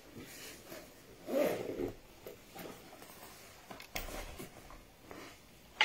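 Quiet rustling of clothing and handling noise, with a light knock about four seconds in and a sharper one near the end.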